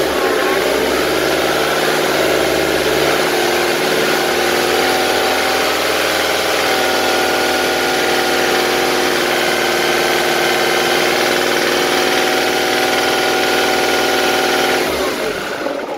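Ford Mondeo Mk3's two-litre common-rail diesel engine idling steadily just after starting, its pitch settling over the first few seconds. The return line is clamped for an injector back-leak test. The engine stops about 15 seconds in.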